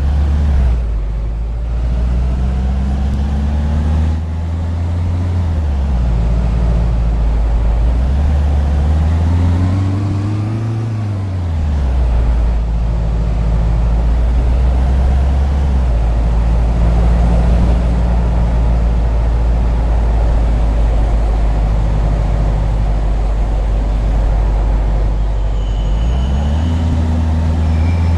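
A vehicle's engine or motor running steadily, its low drone rising and falling in pitch several times as it speeds up and slows down.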